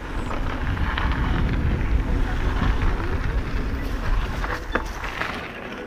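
Wind buffeting an action camera's microphone on a mountain bike descending a trail, with tyre rumble and a few clicks and rattles from the bike, the sharpest near the end.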